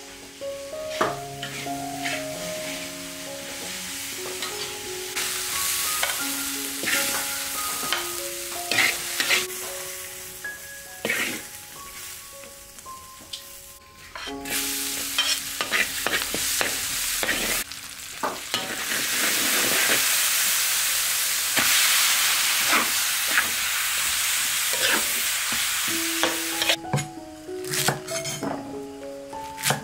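Stir-frying in a metal wok: a spatula scrapes and tosses shredded vegetables in sizzling oil, with soft background music. About halfway through, oil in the hot wok sizzles loudly and steadily. Near the end a cleaver chops vegetable stalks on a wooden board in a few sharp knocks.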